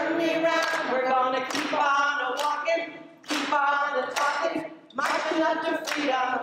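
A group of voices singing a song unaccompanied, in phrases with short breaks between them, with a few hand claps.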